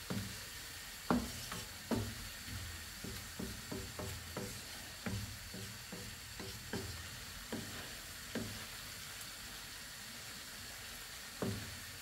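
Wooden spatula stirring flour-dusted chopped vegetables in a nonstick frying pan, with irregular knocks and scrapes against the pan over a low frying sizzle. This is a vegetable roux toasting.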